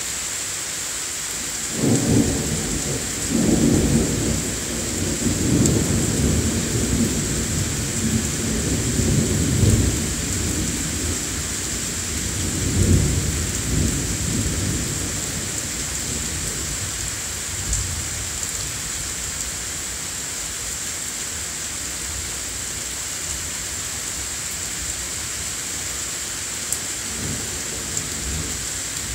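Thunder rolling over steady rain. A long, low rumble starts about two seconds in, swells in several peaks and dies away about halfway through, and a fainter rumble comes near the end.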